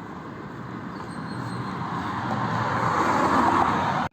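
A motor vehicle approaching on the street, its engine and tyre noise growing steadily louder until the sound cuts off suddenly at the end.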